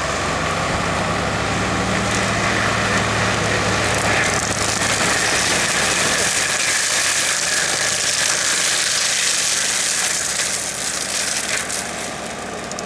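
Skid steer loader running an HCN 0513 series hydraulic forest mulcher attachment: a steady engine hum under a loud rushing noise from the spinning mulcher. The rushing grows stronger about four seconds in while the engine hum fades.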